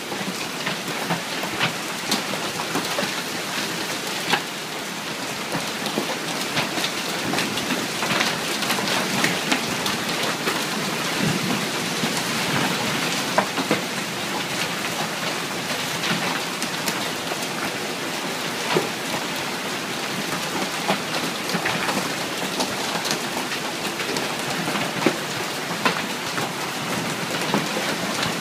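Hailstorm: hail and heavy rain pelting the deck and yard in a steady downpour, with frequent sharp clicks of single hailstones striking.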